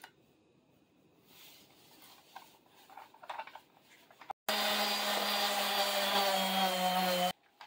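A random orbital sander running on a wooden board: a steady buzzing hum that starts abruptly about halfway through and cuts off suddenly just before the end. Before it there are only faint taps and rubs of handling.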